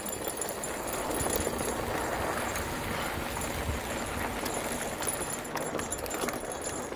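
Mountain bike rolling along a dirt singletrack trail: tyres on the dirt and the bike rattling and clattering irregularly over the bumps.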